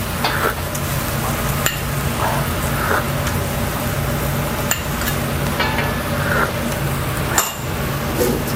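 A metal ladle stirring and scraping a wok of stock-based sauce on the heat, with several sharp clinks of ladle on wok, over a steady low hum.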